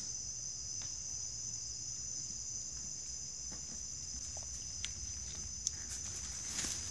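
A steady high-pitched whine or trill, like an insect's, runs without a break. A few faint taps and clicks come near the end.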